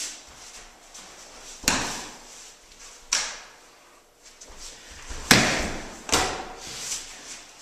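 Sharp thuds and slaps on a padded dojo mat as an aikido partner is thrown and takes a breakfall, four strikes in all, the loudest about five seconds in.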